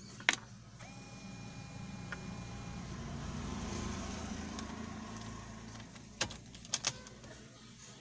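Plastic clicks and knocks of a Sony car stereo being pushed into its dashboard slot: one sharp click just after the start and three quick snaps about six to seven seconds in, over a steady low hum from the car.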